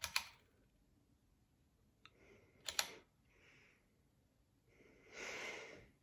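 Two sharp double clicks, one at the start and one about two and a half seconds later, then a breathy rush of noise lasting about a second near the end.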